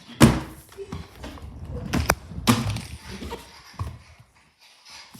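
A flip phone being struck and knocked about: several separate sharp knocks and thuds, the strongest about a quarter second in and around two to two and a half seconds in, with fainter knocks later.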